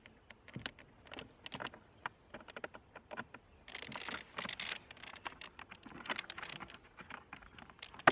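Irregular light clicks and taps from a car door's courtesy-light wiring plug being handled and pushed back into its socket, with a short stretch of rustling about four seconds in.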